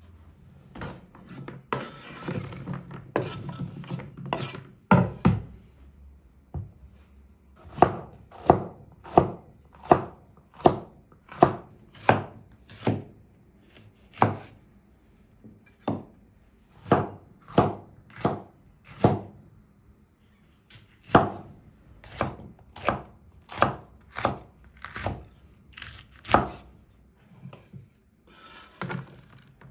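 Cleaver-style chef's knife chopping zucchini and bell peppers on a wooden cutting board. After a few seconds of quicker, softer cutting come sharp, separate chops at about one and a half a second, with a pause of about two seconds in the middle.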